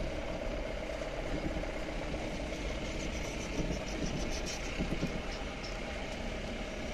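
Vehicle engine running steadily at low speed, with a low rumble, as it drives along a dirt forest track.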